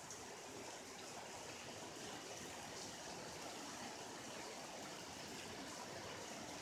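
Steady rain falling, a faint even hiss.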